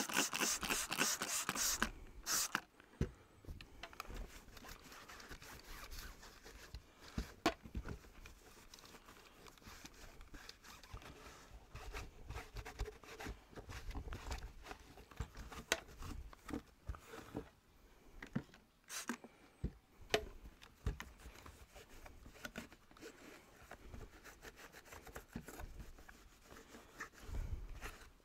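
Handling noise from cleaning the plastic parts of a Dyson V10 Animal stick vacuum. A burst of scraping and rubbing comes in the first couple of seconds, then scattered clicks and knocks of plastic over quiet rustling.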